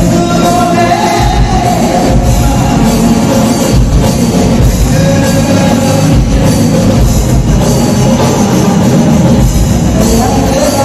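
Loud music with a singing voice over a heavy bass beat.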